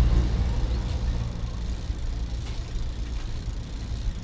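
Low rumble of a motor vehicle's engine, growing fainter over a few seconds.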